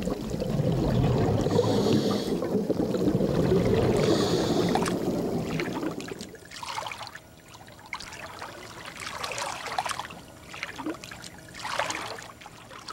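Water splashing and sloshing, loud and rushing for about the first six seconds, then quieter with a few short splashes.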